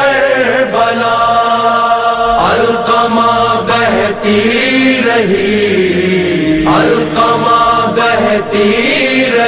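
Male voice reciting an Urdu noha, a Shia mourning lament, in long drawn-out melodic lines with held notes.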